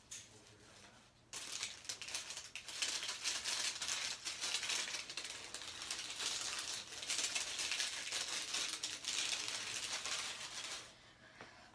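Plastic wrappers and small toy pieces being handled out of view: a dense crinkling and rattling full of small clicks that starts about a second in and stops shortly before the end.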